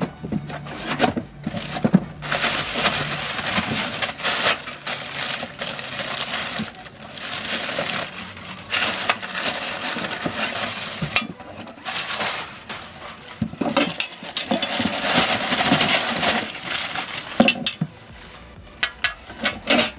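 Cardboard box being opened and brown kraft packing paper crumpled and pulled out: bouts of loud rustling and crinkling, with scattered knocks of cardboard and panels.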